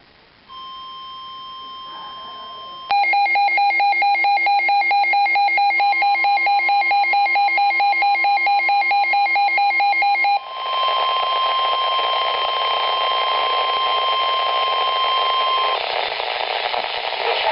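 Emergency alert tones from a mock weather radio broadcast: a quiet steady tone, then a loud pulsing beep of several pitches at about four to five beeps a second for about seven seconds. Then a steady tone near 1 kHz, the NOAA Weather Radio warning alarm tone, sounds over radio static and cuts off near the end, leaving the static.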